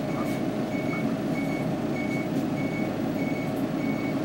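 Inside a city route bus: the engine running with a steady low rumble, under a short high electronic beep that repeats evenly, a little under twice a second.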